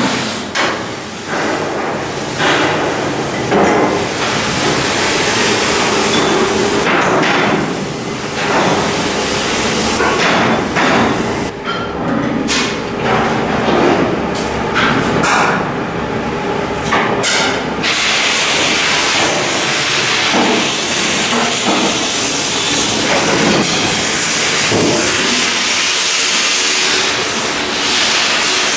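Shipyard steel-hull work: repeated hammer strikes on steel plate over constant workshop noise, giving way after about two-thirds of the way through to a steady hiss.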